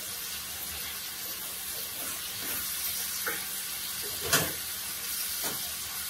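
Beef chunks with mushrooms and onions sizzling steadily as they sear in a cast-iron skillet over high heat. A wooden spatula scrapes and knocks against the pan a few times, loudest about four seconds in.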